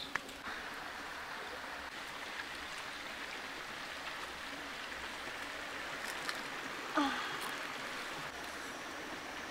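Shallow rocky stream running steadily, with a single knock about seven seconds in.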